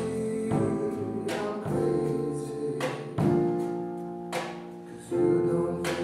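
A live band plays a sustained groove on drum kit, upright double bass, keyboard and guitar, with cymbal crashes about every second and a half. The music thins out and quietens just before five seconds in, then comes back in louder.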